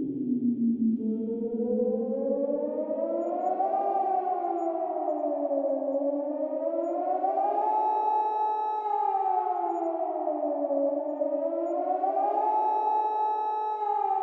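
Nuclear-attack warning siren, a civil-defence wail. Its pitch rises and falls about every four and a half seconds, holding briefly at the top of each of three rises. At the start a lower tone slides down and fades as the new wail begins, about a second in.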